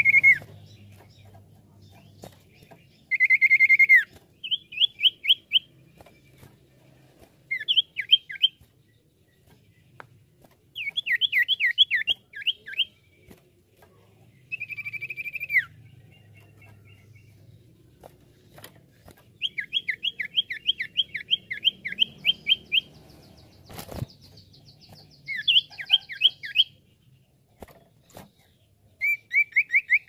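Common iora (cipoh) singing: long whistled notes that drop in pitch at the end, alternating with quick bursts of short repeated notes. A single sharp click sounds about three-quarters of the way through.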